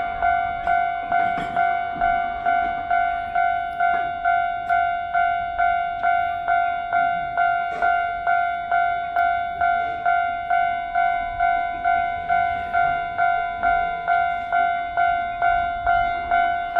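Japanese level-crossing warning bell ringing: an electronic ding repeating evenly about twice a second, the signal that a train is approaching and the barriers are down.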